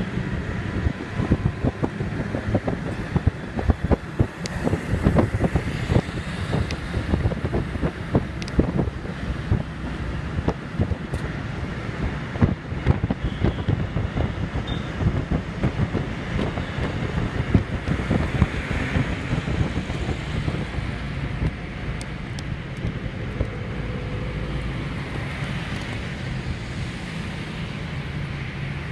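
Wind buffeting the microphone over the running and road noise of a moving vehicle, a constant low rumble with many rapid gusty thumps. The buffeting is heaviest in the first two-thirds and settles into a steadier rush near the end.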